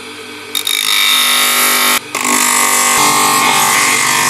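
Bench grinder fitted with a coarse 24-grit sanding disc running, then a wooden sheath half pressed against it, grinding loudly as the wood is hollowed out. The wood is lifted off for a moment about two seconds in and pressed back on.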